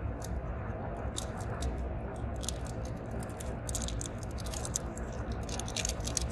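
Fingers picking at and handling a small plastic toy egg, making a run of crackly clicks that grow thicker in the second half, over a steady low rumble inside a car.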